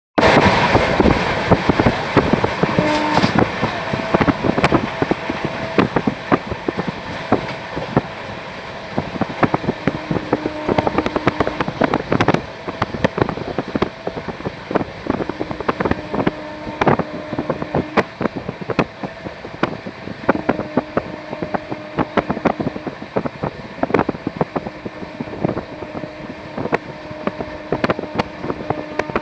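Train running at speed, with a dense run of sharp clicks and knocks over a steady rumble, and wind buffeting the microphone.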